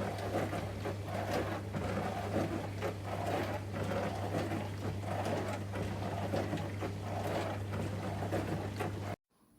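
Hermitlux countertop dishwasher running a wash: a steady motor hum under water spraying and splashing inside the tub, swelling and falling in a regular pulse.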